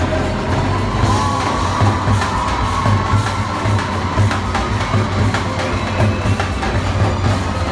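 Live halay dance music with a davul, a large double-headed bass drum, beaten in a steady, even rhythm, and an audience cheering.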